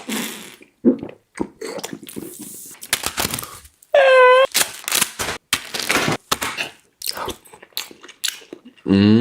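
Crunchy snack being chewed close to the microphone: a run of short, sharp crunches. A brief high-pitched vocal sound cuts in about four seconds in, and a voice comes in near the end.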